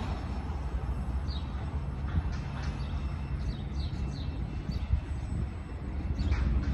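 Small birds chirping in short falling notes, many times over, above a steady low rumble from a train on the line.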